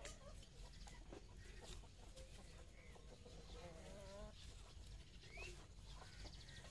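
Faint clucking of chickens: a wavering call about three and a half seconds in and a short rising chirp a little later, over a low steady background hum.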